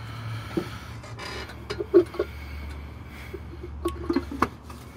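Sheet-metal air cleaner lid being handled and set onto the air cleaner housing: a handful of light metallic clinks, taps and scrapes, bunched in two spells about two seconds and four seconds in.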